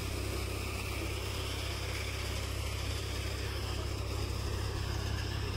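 Swaraj 744 XT tractor's diesel engine running steadily, driving a soybean threshing machine through its PTO: a steady, even low drone with a continuous mechanical hiss over it.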